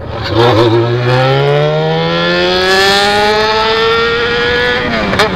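Yamaha XJ6's inline-four engine through a straight-piped 4-into-1 exhaust, accelerating hard in one long pull. It gives a single rising note that climbs steadily for about four and a half seconds, then drops away near the end.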